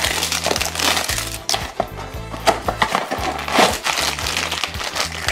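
Plastic wrapping and a foil blind bag crinkling and rustling in irregular bursts as they are torn open by hand, over background music.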